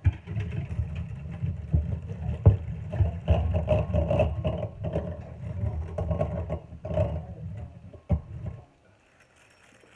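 Egg beater beating pancake batter: a steady rumbling, rattling whirr with scattered knocks that stops about eight and a half seconds in.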